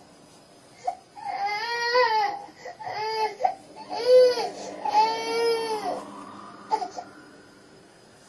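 A high-pitched voice crying in four drawn-out wails that rise and fall in pitch, the longest one near the end.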